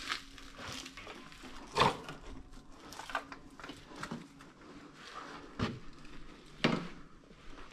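Irregular knocks, clicks and crunches of footsteps and handling among burnt debris in a fire-damaged room, with two louder sharp knocks, about two seconds in and near the end.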